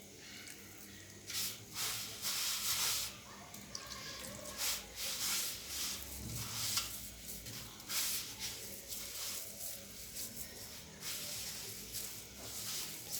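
Hands rubbing and tossing dry barley flour with salt in a bowl, an uneven series of soft hissing rustles.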